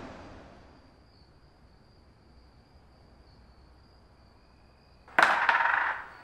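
Carrom break shot: a sharp clack about five seconds in as the striker hits the packed coins, then about a second of coins clattering as they scatter across the wooden board. Before it, the tail of a loud hit fades out within the first second.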